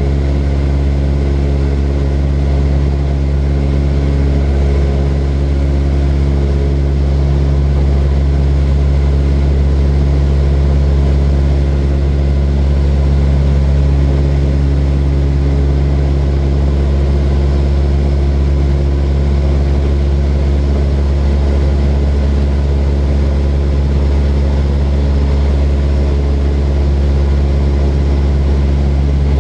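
Propeller airplane engine droning steadily at one constant pitch, a loud low hum that does not change.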